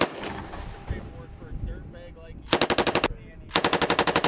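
Belt-fed machine gun firing two short bursts of rapid shots, the first about two and a half seconds in and the second about half a second after it, each lasting well under a second.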